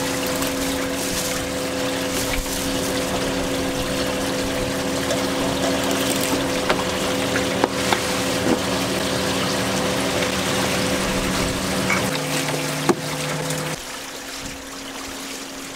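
A boat's machinery running with a steady hum over the sound of water pouring and splashing, with a few sharp clicks of a knife on a wooden cutting board. About twelve seconds in, the deepest note of the hum shifts lower; soon after, it stops and the sound drops to quieter water noise.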